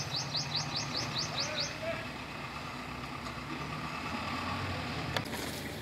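Outdoor ambience with a steady low hum, like a distant motor, and a rapid run of short, high, rising chirps, about six a second, that stops under two seconds in.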